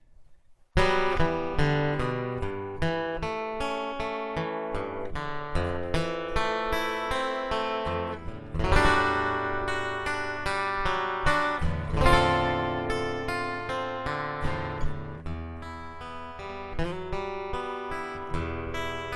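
Acoustic guitar playing a song's instrumental introduction, picked and strummed chords starting about a second in after a short pause.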